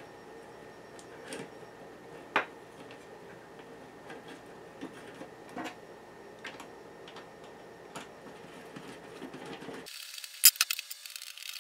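Scattered small clicks and taps from hand assembly: a long T10 driver and small metal screws are handled while a screw on a carbon fiber monitor mount is tightened. There is a stronger click about two seconds in and a quick run of sharper clicks just after ten seconds.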